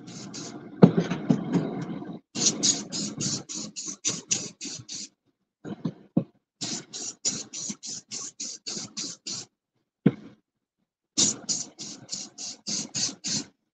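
Aerosol can of flat spray paint hissing in quick short bursts, about four a second, in several runs separated by short pauses, as a light first coat goes onto a tumbler. There is a single sharp knock about a second in.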